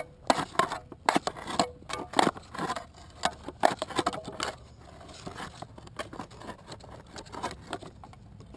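Tunneling shovel blade being pushed into and twisted through packed clay with some gravel under a sidewalk: irregular gritty scrapes and crunches, busiest in the first half, then fainter.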